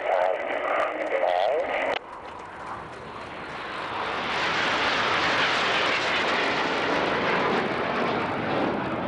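Jet engines of a formation of BAE Hawk aircraft passing overhead: a rushing roar that builds from about three seconds in and stays loud to the end. It comes after a brief voice that cuts off abruptly about two seconds in.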